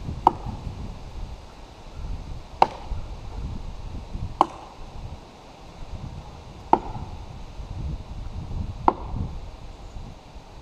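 Axe chopping into the trunk of a large standing tree: five sharp strikes about two seconds apart, each with a short ring.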